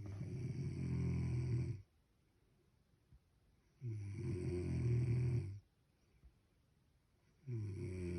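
Snoring: three long snores, each nearly two seconds, coming about every three and a half to four seconds with quiet breaths in between. The last one is cut off at the end.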